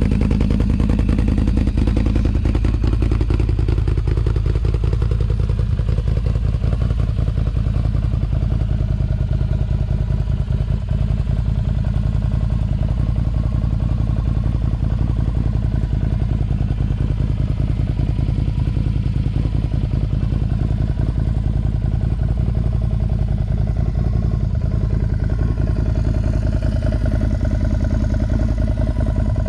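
Can-Am Outlander XMR 1000's V-twin engine running through an aftermarket Yoshimura exhaust. It runs steadily with no pauses, its pitch falling over the first few seconds, then slowly rising and falling again.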